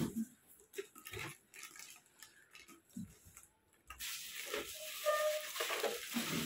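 Plastic packaging on high-chair parts being handled, with a few light knocks in the first few seconds. About four seconds in, a louder continuous crinkling and rustling of plastic bags begins.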